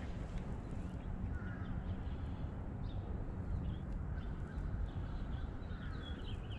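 Birds calling now and then over a steady low rumble of outdoor background noise.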